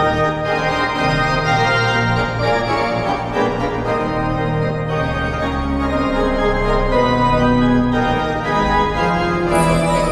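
Organ music playing, held chords shifting from one to the next every second or so.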